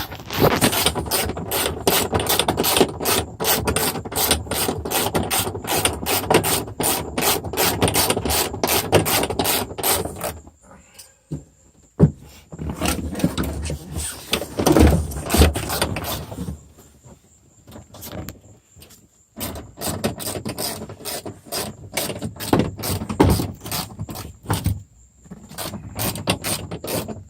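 Hand ratchet wrench clicking in quick runs as bolts are turned. It stops about ten seconds in, with a few scattered clicks, and starts again about two-thirds of the way through.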